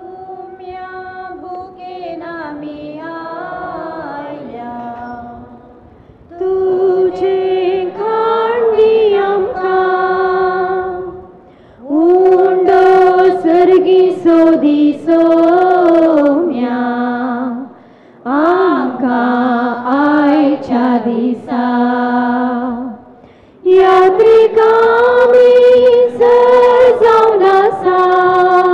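A woman singing a slow church hymn, unaccompanied, in five long phrases with short breaks between them; the first phrase is softer than the rest.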